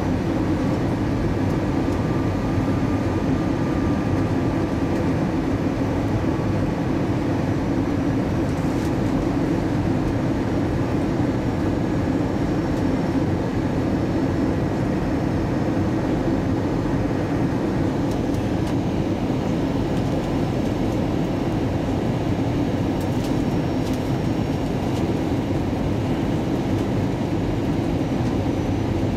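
Cabin noise inside an Airbus A320 airliner on descent: the steady drone of engines and airflow, with faint steady tones above it.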